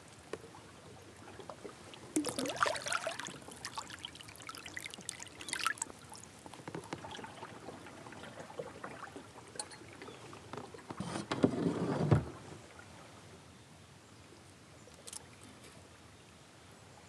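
Water splashing and sloshing against a kayak as a smallmouth bass is let go over the side, loudest about two seconds in with another splash a few seconds later. A second, louder burst of rustling and knocking comes about eleven seconds in, over a low steady background of moving river water.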